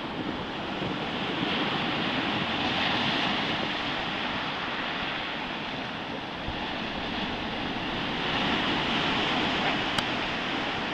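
Stormy Baltic Sea surf: waves breaking and washing in as a continuous rush of noise that swells twice, about two seconds in and again about eight seconds in, with wind on the microphone.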